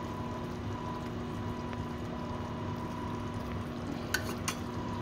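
Chicken legs simmering in ketchup sauce in a wok, a steady bubbling over a low hum, with two light clicks about four seconds in.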